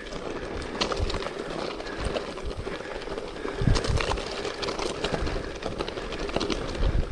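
A bike rolling over a loose, big-gravel trail: tyres crunching on stones, with irregular knocks and rattles and a couple of heavier thumps about four seconds in and near the end.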